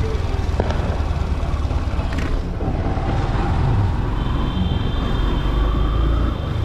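Motorcycle engine running while riding along a street, under a heavy low rumble of wind on the microphone; the engine note climbs through the second half as the bike speeds up.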